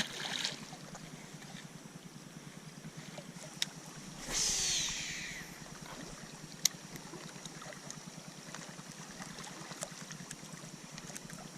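Faint trickling and lapping water at the lake's edge, with a short whooshing swish about four seconds in and two sharp clicks.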